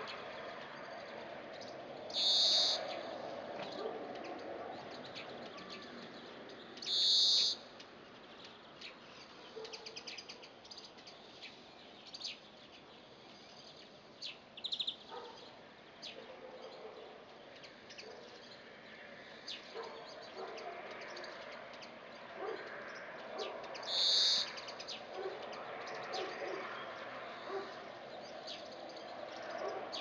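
European greenfinch giving its drawn-out wheezing call three times, high-pitched and buzzy, with fainter short chirps of small birds in between.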